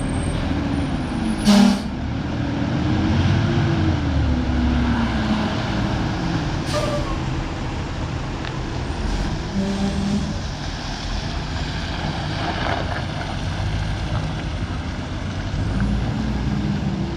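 Garbage truck engine running, its pitch rising and falling as the truck maneuvers, with a loud short hiss of air brakes about a second and a half in and a smaller one about seven seconds in.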